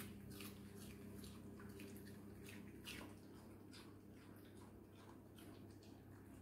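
Near silence: room tone with faint, scattered clicks, one a little louder about three seconds in.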